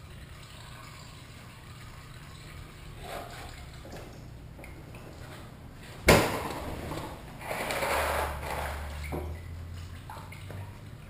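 Honda NT700V motorcycle being heaved up onto its centre stand: one sharp metallic clunk about six seconds in, then a couple of seconds of scuffing and shuffling as it settles. Under it, a faint steady trickle of coolant draining into a pan.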